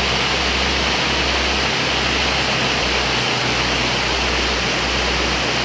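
Stream rushing and cascading over rocks: a steady, even rush of water with a low rumble underneath.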